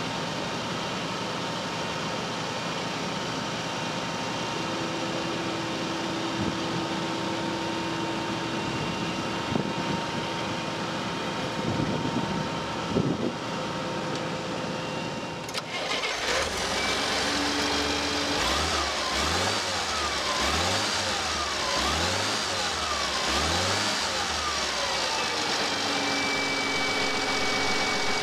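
Forklift engine running steadily, with a higher steady tone for several seconds as the mast is lowered. Then, heard up close, the engine is revved about six times in quick succession, each rev rising and falling.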